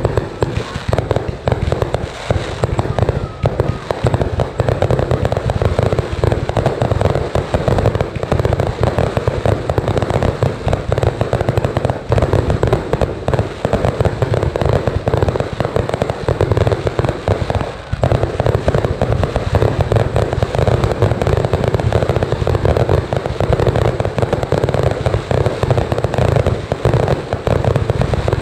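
A fireworks barrage: many aerial shells launching and bursting in rapid, overlapping bangs, loud and without a break.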